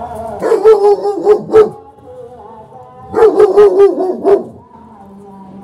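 Black German Shepherd barking aggressively in two rapid volleys of about five barks each, a little over a second apart.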